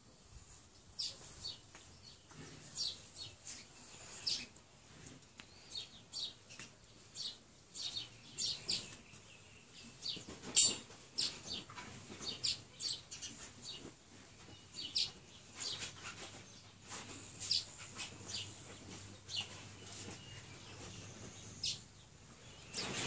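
Birds chirping, many short high calls scattered irregularly, with one sharp click about ten and a half seconds in.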